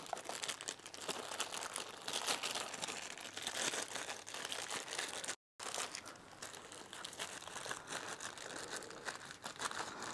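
A plastic Ziploc bag worn over a hand crinkling and rubbing as wax sealant is worked into a leather work glove: a steady, busy crackle. It is broken by a brief dead-silent dropout about halfway through.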